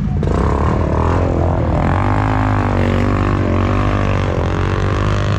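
ATV engine running under throttle, its pitch rising and falling as the revs change. It comes in sharply just after the start.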